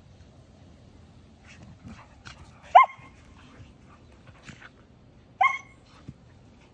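Samoyed puppies play-fighting: two short, high-pitched yips, one rising sharply in pitch, about two and a half seconds apart, with faint scuffling between them.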